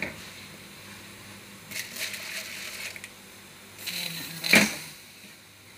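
Raw rice grains being stirred in a pot with a spoon, in two spells of gritty scraping, with a sharp knock about four and a half seconds in, the loudest sound.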